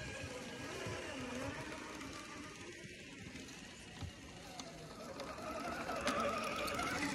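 Electric motors and gear drives of scale RC crawler trucks whining as they push through deep snow, the whine wavering in pitch with the throttle and getting louder about two-thirds of the way in as one comes close.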